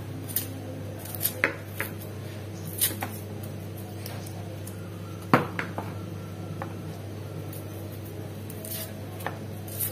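A kitchen knife slicing shallots held in the hand: scattered, irregular short clicks as the blade cuts through, the loudest a little past halfway.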